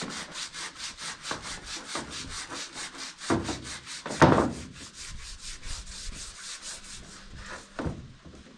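Sandpaper being rubbed back and forth by hand over truck bodywork in quick, even strokes, about six a second, dying away near the end. A louder scrape comes about four seconds in.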